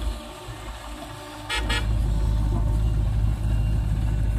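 Diesel engines of a JCB 3DX backhoe loader and a Sonalika tractor running. About a second and a half in, a louder, close, steady diesel rumble takes over, with a brief horn toot just after.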